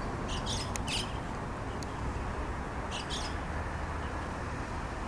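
White-cheeked starlings giving short, harsh, grating calls: a quick cluster of several in the first second and two more about three seconds in. A steady low rumble of background noise runs underneath.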